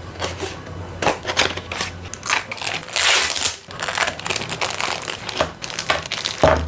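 Toy packaging being opened by hand: a cardboard box tipped open and a clear plastic bag of parts crinkled and handled, a fast irregular run of crackles and rustles, loudest about halfway through.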